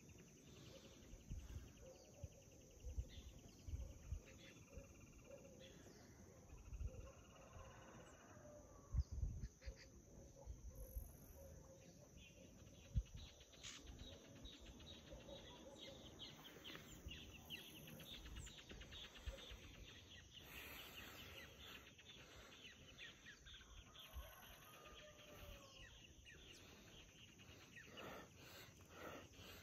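Faint birds and insects chirping in the open air, thickening from about a third of the way in. In the first half there are scattered low thumps on the microphone.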